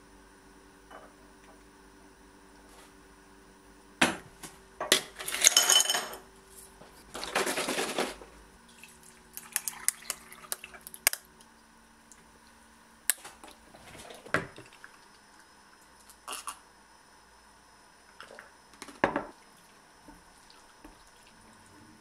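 Tableware being handled and set down on a kitchen counter: scattered clinks and knocks of ceramic bowls, a glass and a plastic container, with two longer noisy stretches of food or liquid being tipped out, and orange juice poured from a carton into a glass.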